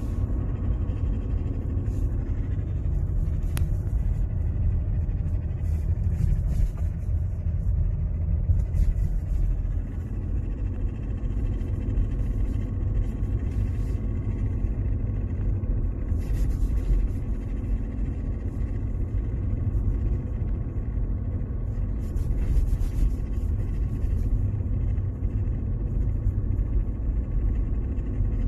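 Mercedes-Benz W203 running with a steady low rumble and a faint steady tone above it, with brief hissy rattles now and then. The owner takes it for a strange noise from the gearbox, cause unknown.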